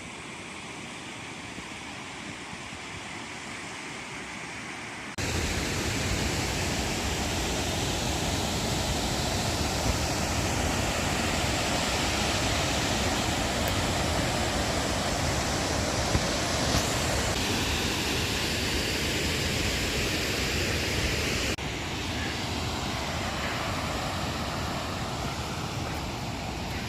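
Rushing water: a steady, even noise that jumps louder about five seconds in and drops back somewhat later on, with cuts between shots.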